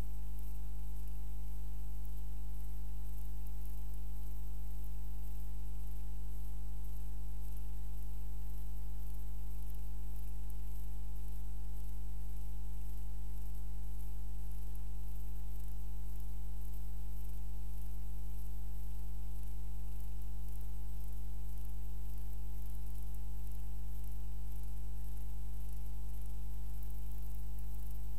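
Steady low electrical mains hum with a buzzy overtone, under constant hiss, unchanging throughout. It is the noise floor of an analog transfer of a silent film, with no soundtrack of its own.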